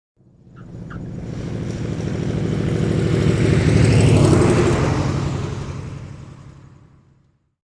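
An engine-driven vehicle passing by: the engine sound swells from nothing to a peak about four seconds in, then fades away and is gone shortly before the end.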